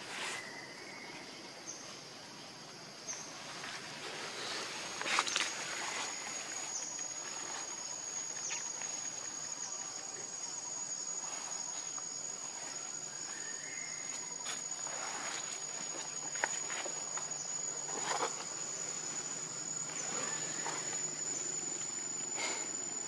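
Steady high-pitched insect drone, growing stronger about five seconds in, with a few brief rustles of leaves, the loudest about five seconds in.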